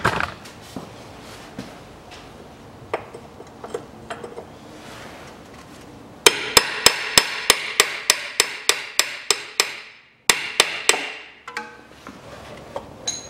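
Fast series of sharp metal-on-metal hammer blows, about four a second, after a few seconds of faint clinks, stopping briefly and then ending with a short second run. This is steel being hammered to knock a car's lower control arm down off its ball joint.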